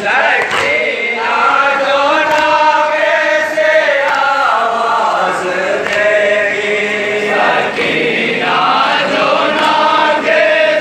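A group of men chanting a noha, a Muharram mourning lament, in unison through microphones, in long held melodic lines.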